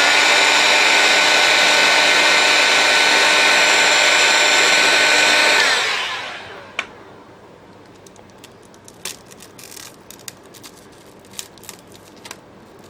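Heat gun blowing steadily with a fan whine, warming the adhesive under a phone's touchscreen glass, then switching off and winding down about six seconds in. After that, scattered small clicks and ticks as the glass is pried loose with a tool.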